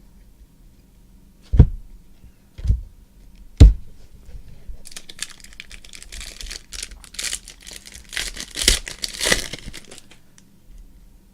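Three dull knocks about a second apart, then about five seconds of crinkling and tearing as a trading-card pack's wrapper is ripped open.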